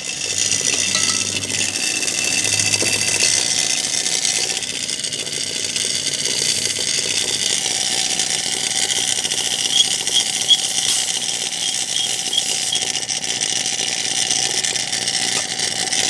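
Refrigerator compressor running steadily with a high hiss, pushing pressure into the line to flush oil through a blocked capillary tube; the gauge pressure climbing toward 450 is what tells the technician the capillary is choked.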